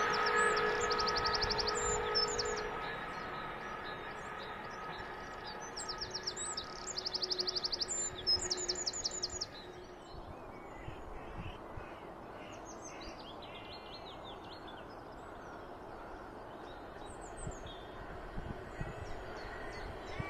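Songbirds singing in short, rapid, high trills, loudest about halfway through. In the first few seconds they sing over the fading hum of a Class 37 diesel locomotive and its train heading away.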